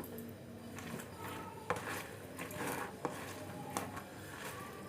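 Food being mixed in a dish with a utensil: soft scraping against the dish, broken by a few light clicks and clinks.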